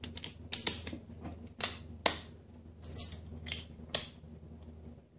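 Ratchet strap buckle being worked to tighten the strap around a kerfed wooden horn port: a series of sharp clicks at uneven intervals as the strap is drawn tight to clamp the bent panel.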